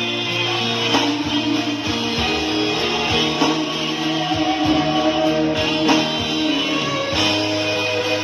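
Instrumental break in a Malay pop song: guitar-led backing music with a beat, no singing.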